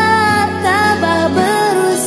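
Background music: a song with a singing voice carrying a gliding melody over instrumental accompaniment.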